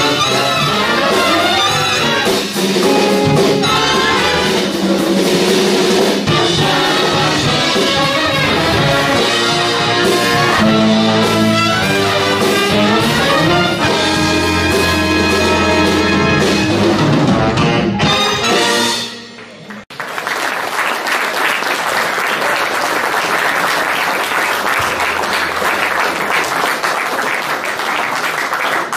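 Live jazz big band of saxophones, trumpets and trombones with drums playing a number through to its final chord, which stops about two-thirds of the way through. The audience then breaks into applause.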